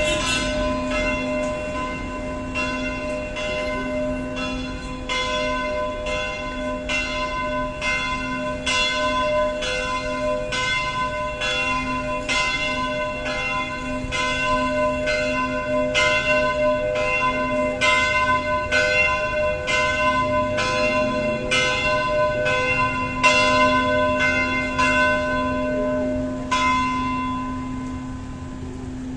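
Church bells ringing, struck roughly once a second with several pitches sounding together; the strikes stop near the end.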